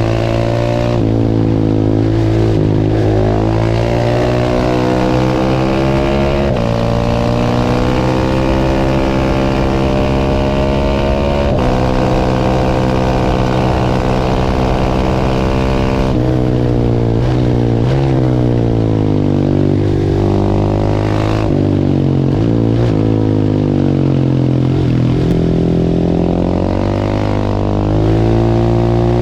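Large single-cylinder supermoto engine under way, the revs climbing and then dropping sharply at each gear change, holding steady for a few seconds about midway, then falling and picking up again as the bike slows and accelerates.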